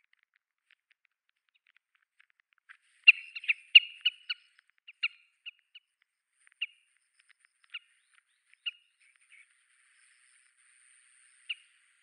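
Oriental pratincoles calling: a quick run of short, sharp calls about three seconds in, then single calls every second or so, the last one near the end. These are the calls of a small flock that has suddenly flushed and taken flight.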